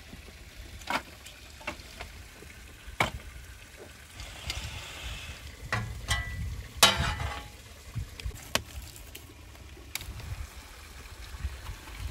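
Split firewood and metal fire tongs knocking and clattering as a wood fire is fed and glowing embers are moved, several separate sharp knocks with the loudest about seven seconds in. A brief soft hiss comes just before the middle.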